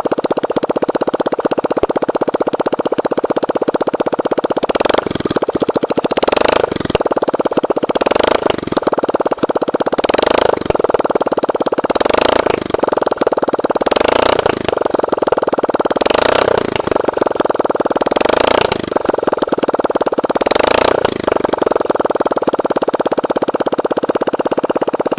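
Honda 250cc motorcycle engine running after an engine swap. It idles steadily, then from about five seconds in the revs rise and fall roughly every two seconds as the throttle is blipped.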